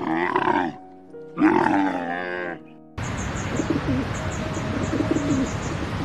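A camel calling twice, two drawn-out moaning calls of about a second each, the second longer, over soft background music. About three seconds in the sound cuts to pigeons cooing softly against a steady hiss.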